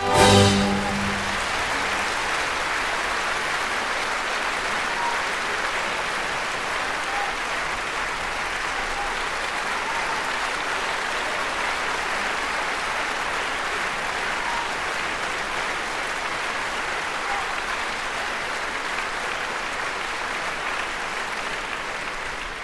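The orchestra's closing chord of the variation in about the first second, then an audience applauding steadily, without a break, until it cuts off at the end.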